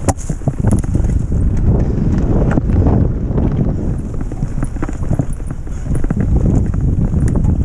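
Mountain bike rolling fast over a bumpy forest dirt track: a steady rush of wind on the microphone, with irregular clicks and rattles from the bike and handlebar map board jolting over the ground.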